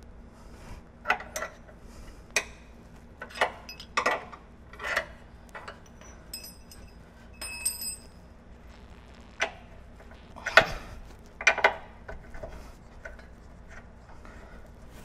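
Steel pry bar and hand tools clinking and knocking against the rear lower control arm and its frame bracket, as the arm is levered to line up its bolt hole. The knocks are irregular and sharp, some ringing briefly, with two louder knocks a little past the middle.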